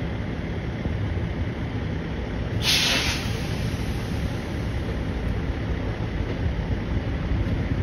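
Heavy truck's diesel engine running steadily, with a sudden hiss of air brakes released about two and a half seconds in that fades over half a second.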